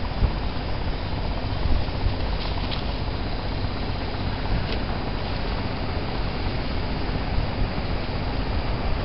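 Wind buffeting an outdoor microphone: a steady low rumble with hiss underneath, and a few faint clicks.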